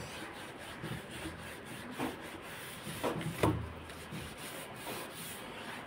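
Green dish-scouring pad scrubbing a soapy wooden sewing-machine table, a steady scratchy rubbing with a few louder strokes around the middle.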